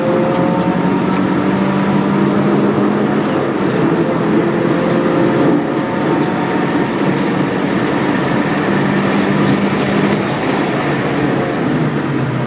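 Subaru WRX race car's turbocharged flat-four engine running hard at fairly steady revs, its pitch holding for several seconds at a time with small dips.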